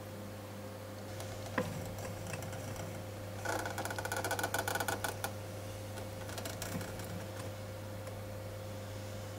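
Servo motors in a robot made of wooden branches, whirring and clattering as they drive its joints. A single click comes first, then a dense buzzing rattle for about two seconds, then a shorter one. A steady low hum runs underneath.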